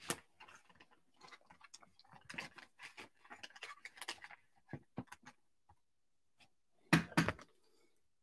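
Plastic wrapper crinkling and crackling in a run of small irregular crackles as it is peeled off a trading card, then a louder short rustle and bump from handling near the end.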